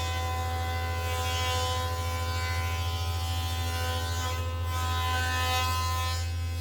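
Electric thickness planer running and planing a cedar board: a steady motor hum with a whine of steady tones over a hiss of cutting. The cutting hiss stops suddenly at the very end while the motor keeps running.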